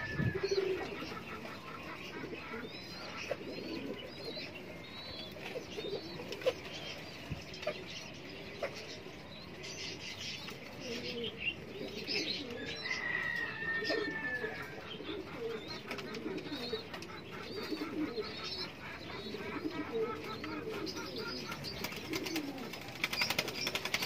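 A loft of caged domestic pigeons cooing over and over in many overlapping low calls. Higher chirps from other birds are mixed in, with occasional wing flaps.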